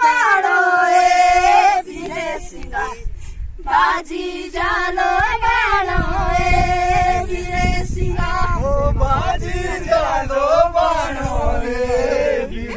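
A group of voices singing a Pahari folk song in long, drawn-out phrases over a steady held note, with a low rumble underneath from about halfway through.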